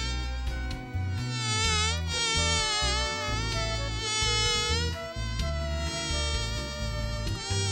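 Cartoon bee buzzing sound effect: a nasal, buzzy tone that wavers up and down in pitch in phrases of a second or two, over a low bass line.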